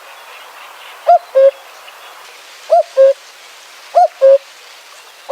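A bird giving a loud two-note call, a higher note followed by a slightly lower one, repeated three times at about one-and-a-quarter-second intervals.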